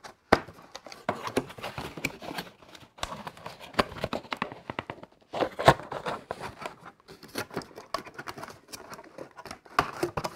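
Cardboard packaging being handled and pulled apart by hand: rustling and scraping with sharp clicks throughout, the sharpest about half a second in and again near the middle.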